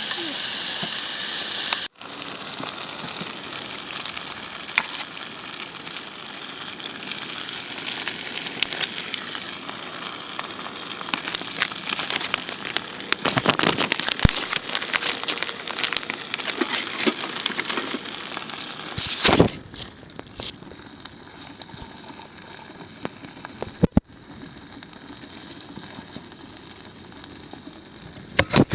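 Vegetables frying in oil in a pan over a backpacking stove: a steady loud sizzle with crackles, which drops to a much quieter sizzle about two-thirds of the way through.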